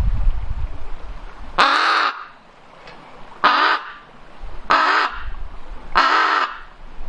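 Raven calling: four harsh caws, each about half a second long, spaced a little over a second apart. The first call begins about a second and a half in. A low wind rumble sits beneath the calls.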